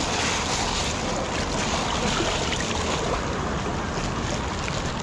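A fast-flowing stream rushing over rocks, a steady even noise of running water.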